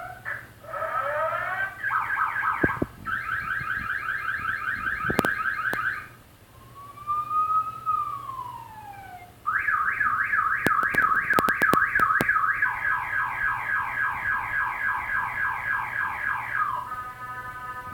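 Electronic telolet horn run from a phone app, playing a string of siren sounds that change every few seconds: fast warbling wails, a slow rising-and-falling wail, more fast warbles, and near the end a steady chord of several notes. A few sharp clicks fall in between.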